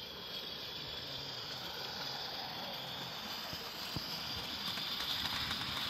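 16mm-scale live steam locomotive hissing steadily as it runs along the track, growing gradually louder as it approaches and passes close.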